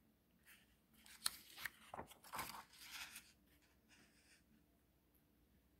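A picture book's page being turned: faint paper rustling and a few soft clicks, starting about a second in and lasting about two seconds.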